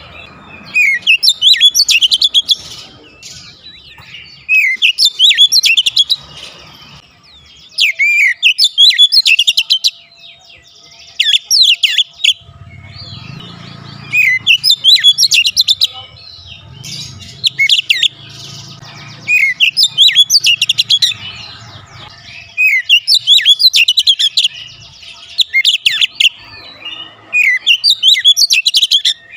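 Male Oriental magpie-robin singing in full, vigorous song: about a dozen loud phrases of rapid, high, sweeping whistles, each a second or so long, with short pauses between them.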